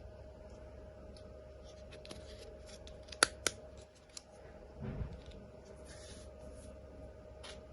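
Close-up handling of toy cars and their packaging: faint scattered clicks and rustles, with two sharp clicks a moment apart about three seconds in and a soft bump about five seconds in, over a faint steady hum.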